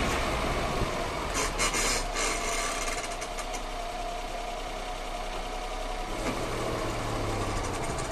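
Strange noise from a Daihatsu Charade G10's brakes, heard only when they are warm: a quick run of sharp clicks about one and a half seconds in, over the car's running engine and a steady mechanical noise.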